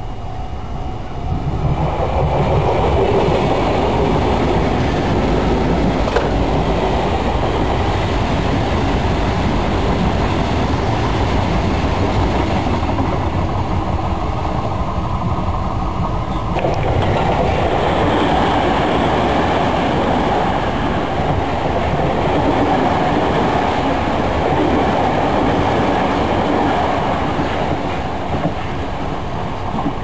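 Steady rumble of a Sotetsu electric commuter train running on the track, its sound changing about halfway through.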